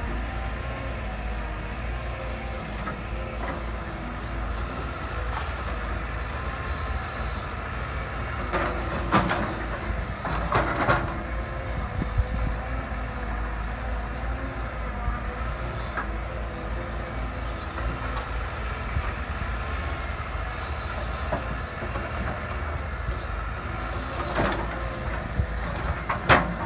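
Heavy diesel machinery running steadily, with a low rumble and an even engine drone, broken by a few sharp metallic clanks, a cluster near the middle and another near the end.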